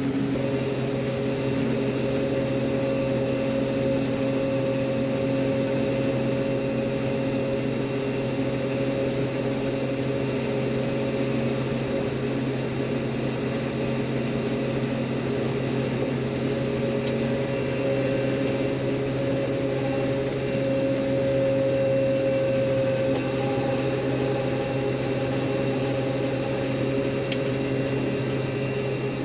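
Combine harvester running steadily while combining soybeans: an even machine drone with several held tones.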